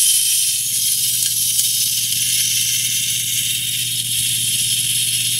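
Small electric motor of a model ship's anchor winch running with a steady low hum, reeling in the anchor chain, over a constant hiss.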